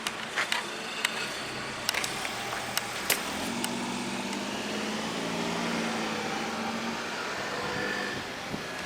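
Road traffic at a railway level crossing after the warning bell has stopped: a car's engine running as it passes, with several sharp clicks in the first few seconds.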